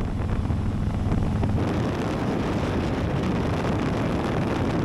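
Harley-Davidson motorcycle cruising on the road: a steady engine hum under wind rush on the microphone. About a second and a half in, the engine hum fades back and the wind rush takes over.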